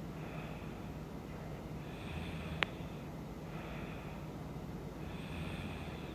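A sleeping woman snoring, slow noisy breaths repeating about every one and a half to two seconds, some with a low rumble. A single sharp click about two and a half seconds in.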